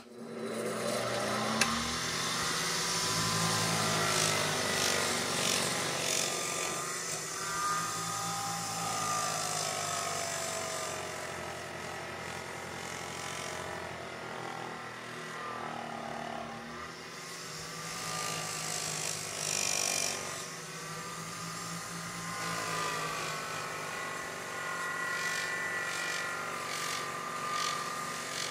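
Bench grinder running with a cloth buffing wheel while a steel hatchet head is pressed against it to polish it: a steady motor hum under a whine that slowly rises and falls as the pressure on the wheel changes.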